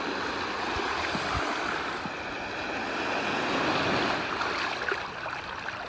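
Small surf waves washing in over shallow sand at the water's edge, a steady rushing wash that swells about four seconds in.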